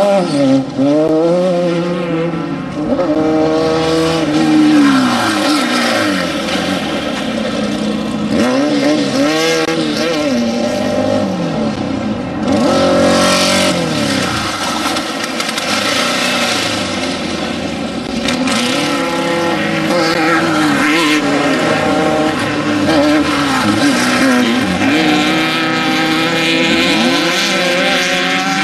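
Off-road desert race vehicles running hard, their engines repeatedly climbing and dropping in pitch as they accelerate and shift through the gears.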